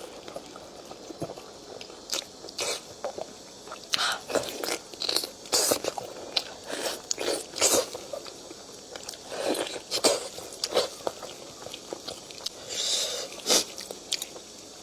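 Close-up eating sounds: a person biting and chewing meat off the bone, with irregular wet clicks and crunches.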